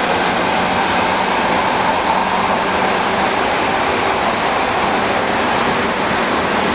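Tokyu 8500 series electric train with Hitachi GTO inverter control running at speed, heard from inside the car: a steady rushing rumble of wheels and running gear. A faint motor tone rises slightly over the first couple of seconds and then fades.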